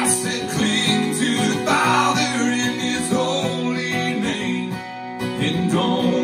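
Acoustic guitar strummed and picked in a country song's instrumental passage between sung lines.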